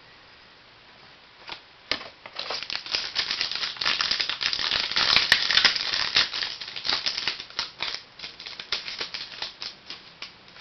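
Trading card pack being opened by hand: the wrapper crackles and crinkles in a dense run of small clicks. It starts about a second and a half in, is busiest in the middle and thins out toward the end.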